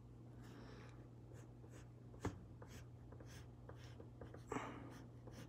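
Pencil drawing and shading on paper in faint scratchy strokes, with two louder ticks about two and four and a half seconds in.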